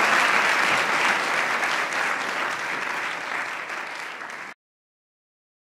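Audience applauding, slowly dying away, then cut off abruptly about four and a half seconds in.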